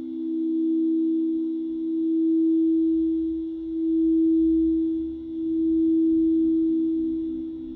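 Singing bowl ringing a sustained low tone with a second close tone beneath it, the sound swelling and fading in slow, regular waves.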